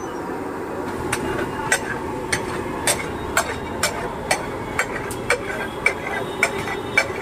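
A steel spatula striking a large flat iron griddle (tawa) about twice a second, with sharp metallic clinks, as bhaji is mashed and mixed. The strikes begin about a second in, over steady background noise from the stall.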